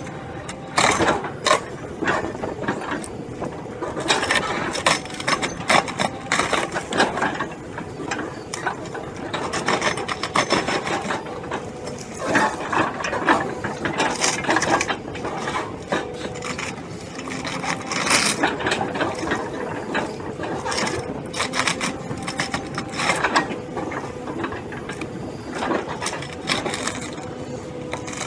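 Machine cutting into wood: a dense, irregular crackle of cracks, clicks and clatter, with a faint steady hum underneath.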